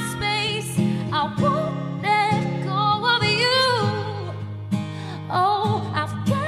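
Acoustic pop ballad: a woman singing long, wavering held notes over plucked acoustic guitar.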